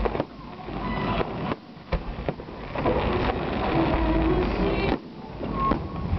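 Fireworks display: shells bursting in about five sharp bangs, spaced a second or two apart, over a low rumble.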